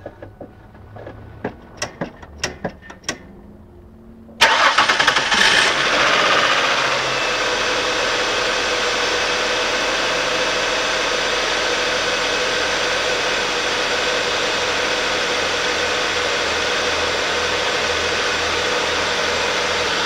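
A few faint clicks, then the 1998 Ford Taurus's 3.0-litre 24-valve V6 fires up from cold about four seconds in, runs louder for a couple of seconds and settles to a steady cold idle. The owner reports a buzzing noise at cold idle that goes away once the engine warms up.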